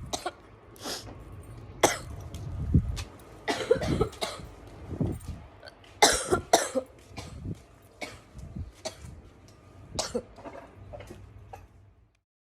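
A girl with bronchitis coughing over and over in short, sharp coughs, some in quick pairs, the hardest about six seconds in. The coughing stops suddenly just before the end.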